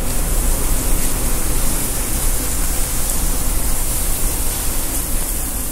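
Steady, loud hiss of rendered Wagyu fat sizzling on a flat-top griddle at about 400 to 450 degrees, ready for a quick sear.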